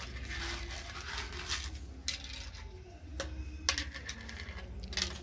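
Black peppercorns being crushed on a flat stone grinding slab under the stone roller: a gritty scraping crunch with several sharp cracks.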